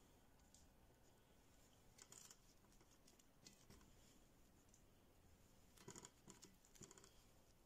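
Near silence with a few faint rustles and light clicks, mostly about two seconds in and again near the end, as a plastic-gloved hand handles stuffed grape-leaf rolls in a metal pot.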